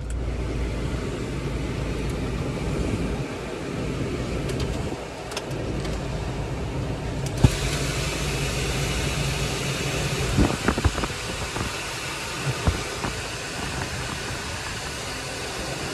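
Corsa VXR's 1.6-litre turbo four-cylinder idling, heard from inside the cabin, with the climate-control blower fan running. About seven seconds in there is a click and the blower comes up to a steady rush of air from the vents, blowing fairly cold: the air conditioning is working. A few clicks of the dashboard buttons follow.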